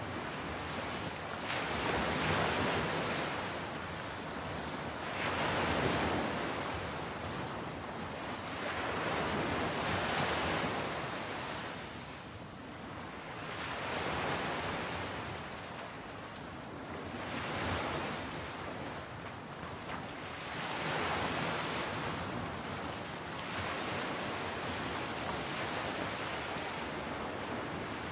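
Surf breaking on a sandy beach. The rush of each wave swells and fades about every three to four seconds.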